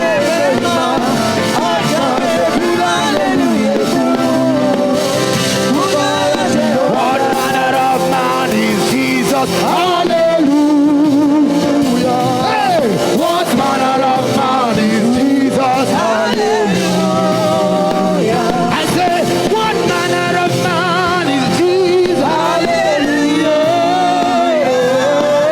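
Live gospel praise music: a singer with a wavering, ornamented voice over a band's steady chords.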